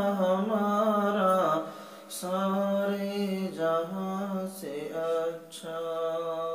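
A man singing alone into a handheld microphone, drawing out long held, wavering notes with no clear words. There is a short break about two seconds in before he carries the melody on.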